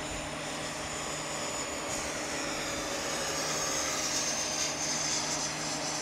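Electric ducted fan of a 90mm RC F-16 jet running at speed: a steady rushing whine. The high whine grows louder from about two seconds in and eases slightly near the end.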